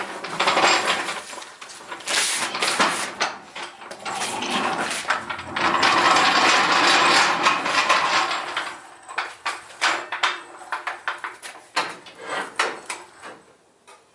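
A steel floor jack rolled across concrete, its wheels rattling for several seconds, then a run of separate metal clanks and knocks as it is set under the front of a pickup truck.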